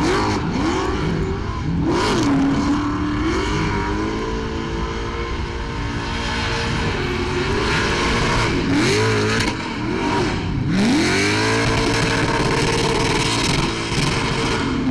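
Car engine revving hard in a burnout: the revs rise and fall again and again, and are twice held high for a few seconds, over the hiss of spinning tyres.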